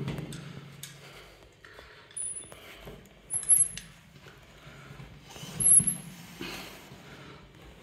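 Steel triangle handle and its clip squeaking and clinking under load as a training strap is pulled taut: several short, high squeaks with small clicks, repeated with each pull.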